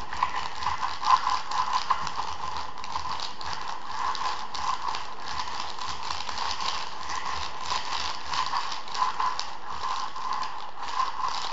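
Kitchen spoon pressed and rubbed over folded baking paper, crushing oven-dried saffron stigmas into powder: a continuous run of small scraping clicks and paper crinkles.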